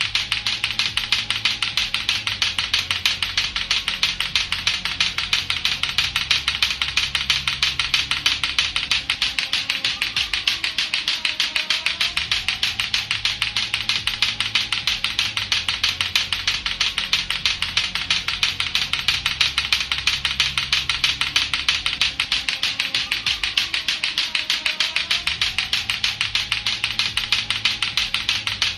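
Latto-latto clacker balls knocking together in a rapid, steady stream of sharp plastic clacks, over a low looping music track with bass notes.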